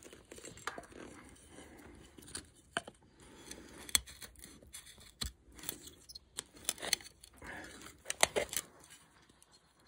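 Busse Battle Mistress knife carving a notch into a thin dry wooden stick: irregular sharp clicks and cracks of the blade biting and splitting the wood, with soft scraping between. The cut goes hard, which the user puts down to the blade being thicker behind the edge.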